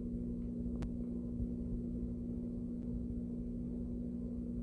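A steady low hum with two held tones over a low rumbling background, like a running appliance, with a faint click about a second in.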